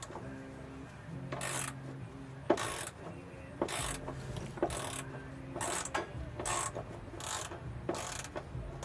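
Hand ratchet wrench clicking in short repeated strokes, about one stroke a second, as a socket is worked on a bolt under the truck.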